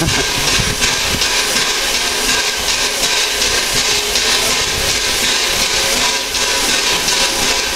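Standing A1 Pacific steam locomotive Tornado hissing loudly and steadily with escaping steam.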